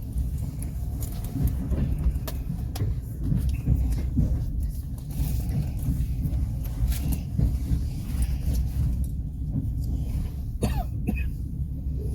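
Passenger train carriage rolling along the track: a steady low rumble from wheels on rail, with scattered sharp clicks and knocks and a brief squeal near the end.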